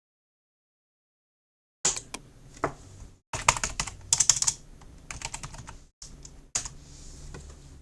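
Typing on a Logitech computer keyboard: a fast run of key clicks starting about two seconds in, with a couple of brief pauses.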